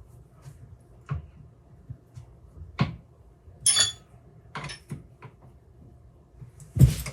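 Metal tools and parts being handled and set down on a workbench: scattered light knocks, one ringing metallic clink a little past halfway, and a louder knock near the end.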